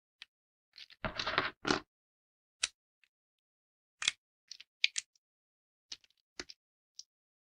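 Thin dry soap plates being snapped by hand: a short run of crunching cracks about a second in, then single crisp snaps every second or so.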